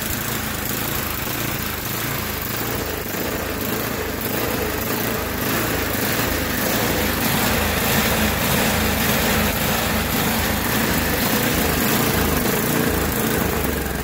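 Tecumseh 8 hp single-cylinder four-stroke engine on a snowblower, idling with a surging idle, its speed swelling and sagging. It surges hard enough to rock the machine on its wheels, a carburettor fault that the owner suspects comes from a clogged passage behind one carb screw.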